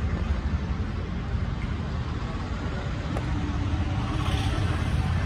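Steady road traffic noise from passing vehicles, heaviest in the low pitches, with a faint click about three seconds in.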